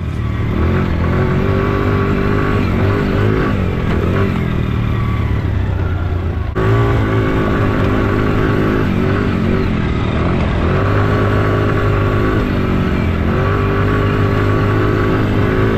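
Yamaha Raptor 90 ATV's small single-cylinder four-stroke engine running hard under throttle, its pitch rising and dipping several times as the revs change. About six and a half seconds in the level steps up suddenly.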